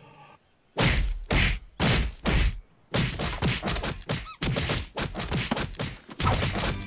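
Cartoon sound effects: four heavy thumps about half a second apart, then a faster run of knocks and thumps.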